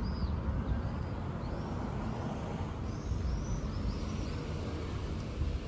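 Street ambience: a steady low rumble of traffic, with a small bird giving short arched chirps every so often, most often about three to four seconds in.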